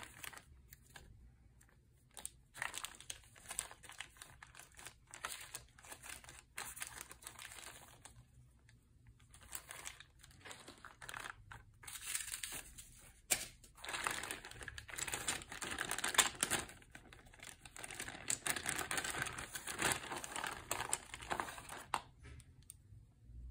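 Clear plastic zip bags of board-game pieces crinkling and rustling as hands lift and shift them, with many short clicks and taps, loudest in the second half.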